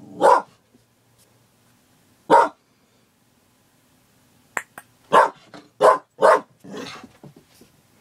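Border collie barking in short, sharp single barks: one at the start, another about two seconds later, then a quick run of three barks a little past halfway.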